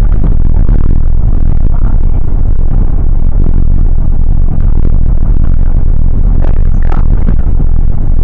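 Double-decker bus in motion, heard from a seat on the upper deck: a loud, steady low rumble of engine and road with small rattles and clicks from the bodywork.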